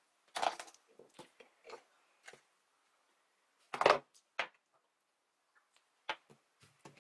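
Makeup items such as pencils and small pots tapping and knocking as they are picked up and set down on a marble countertop and into a tray: scattered light clicks, with two louder knocks about four seconds in.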